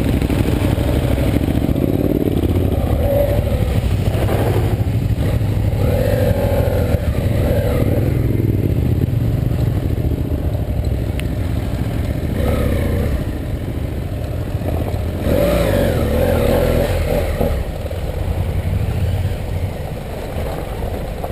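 BMW F 800 GS parallel-twin engine running under way as the motorcycle rides a rough dirt track, the throttle rising and easing at times.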